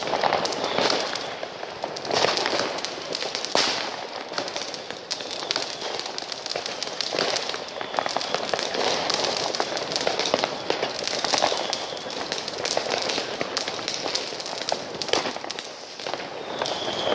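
New Year's Eve fireworks going off close by: a dense, continuous run of firecracker cracks and bangs from rockets and batteries, with no pause.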